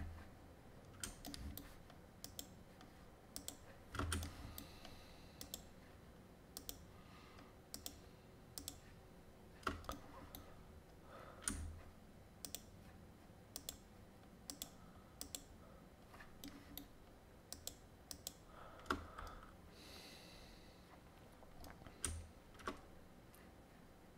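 Computer mouse clicking over and over at irregular intervals, faint sharp clicks as faces are shift-clicked into a selection one at a time.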